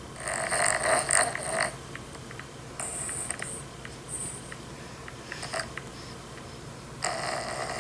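Loud snoring: one long snoring breath in the first two seconds and another starting near the end, with shorter, fainter breaths between.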